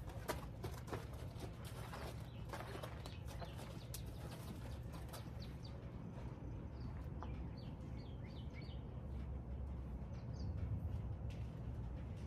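A small bird chirping in short quick notes, several times around the middle and again briefly later, over a steady low outdoor rumble. Soft knocks and rustles in the first few seconds as the horse and handler walk on sand.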